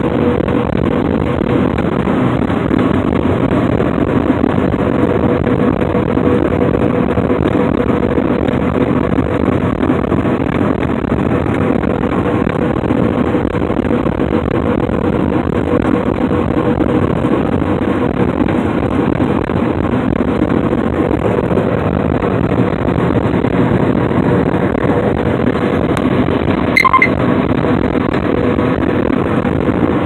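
John Deere S670 combine running steadily while harvesting wheat, its drone heard from inside the cab with a steady hum through it. A short click near the end.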